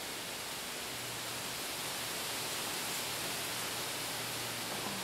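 Steady background hiss with a faint low hum and no distinct event.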